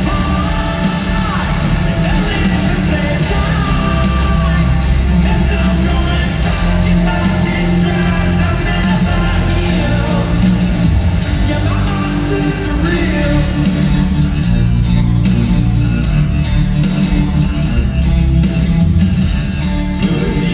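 Hard rock band playing live, with a lead singer over electric guitars, bass and drums.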